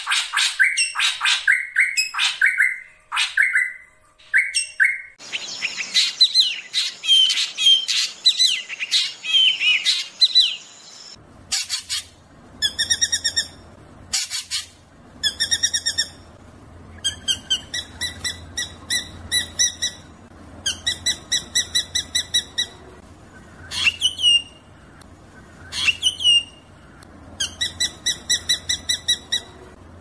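Drongo song: fast runs of sharp, ringing call notes, rattling trills and a few quick upward-sweeping whistles. The sound changes character about 5 s in and again about 11 s in, with a faint low hum beneath the later notes.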